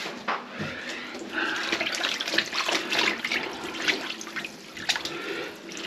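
Water running and splashing into a kitchen sink whose drain is clogged with grease, getting louder about a second in.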